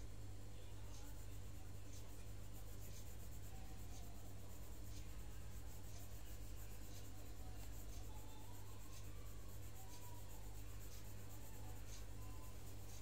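Coloured pencil scratching on paper as it shades in a drawing, over a steady low hum and a faint tick about once a second.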